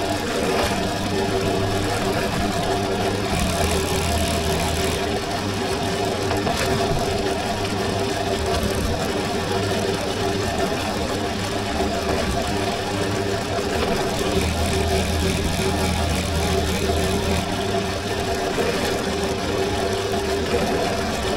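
Benchtop drill press running steadily, its motor and spindle humming, while a fine bit bores stitching holes through a leather sheath face.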